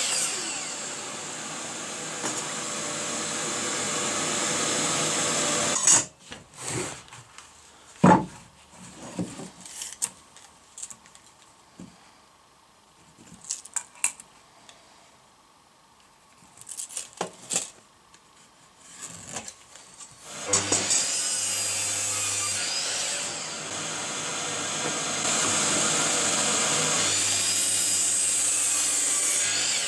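DeWalt miter saw running and cutting through pine boards, a steady loud whine of motor and blade in wood. The saw stops about six seconds in, giving way to scattered knocks and clicks as boards are handled on the bench. It starts up and runs again for the last nine seconds or so.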